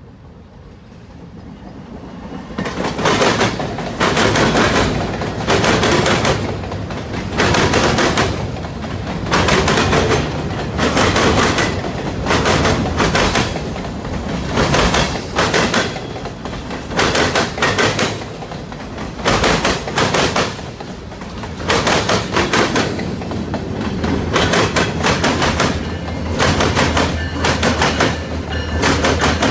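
A passing train's wheels clatter heavily over the track joints. Sets of wheels bang through in quick groups about once a second, starting after a couple of quiet seconds and carrying on as car after car goes by.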